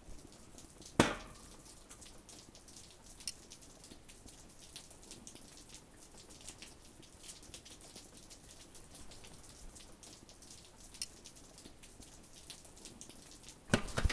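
Meat sizzling on a grill, with faint irregular crackles and pops. A sharp knock comes about a second in, and a short clatter near the end.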